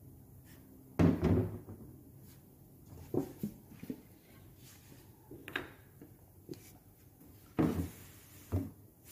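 Handling knocks on a tabletop: several separate thumps and clunks as paint tins and a plastic mixing cup are moved about, the loudest about a second in and again near the end.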